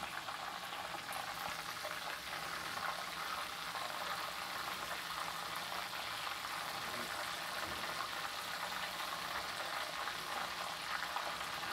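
Pieces of bull testicle frying in hot oil in a cast-iron skillet: a steady sizzle and crackle.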